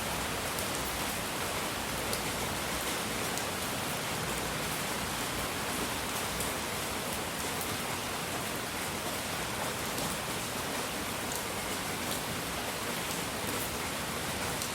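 Steady hiss of relaxing noise ambience that sounds like rain, with faint scattered drop-like ticks and no change in level.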